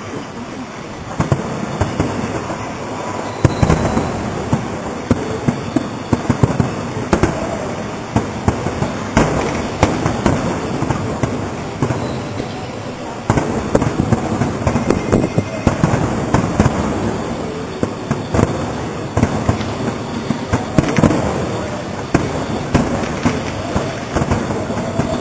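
Fireworks display bursting continuously, a dense run of overlapping bangs and crackles that thickens and grows louder a few seconds in.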